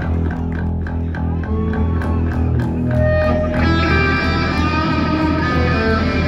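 Live punk rock band playing an instrumental passage through the PA: electric bass and guitar over drums with regular cymbal strokes, the guitar part growing fuller about three and a half seconds in.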